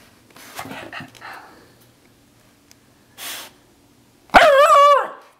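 Miniature schnauzer, worked up after a bath, making a few short breathy huffs, then one loud, drawn-out bark with a wavering pitch near the end.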